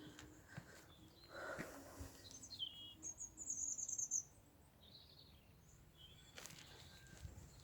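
Small wild birds chirping in short high calls, with a brief high trill about three seconds in.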